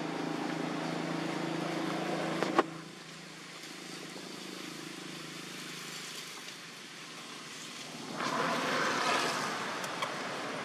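A steady low motor drone, a running engine, that drops in level after a single sharp click about two and a half seconds in. A broad rustling hiss rises about eight seconds in.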